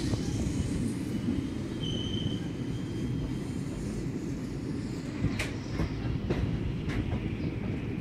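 Indian Railways passenger coaches running along the track, a steady low rumble of wheels on rail. A brief high tone sounds about two seconds in, and a few sharp clicks come in the second half.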